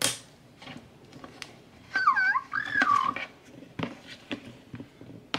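Magic Mixies toy pet's electronic creature voice: one short warbling call, dipping and rising in pitch, about two seconds in. Small sharp clicks of scissors snipping rubber bands come before and after it.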